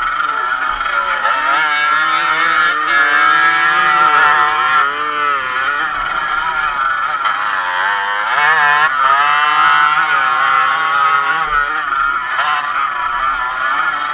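Dirt bike engine ridden hard at close range, its pitch repeatedly rising and falling as the throttle opens and closes through the turns and gear changes.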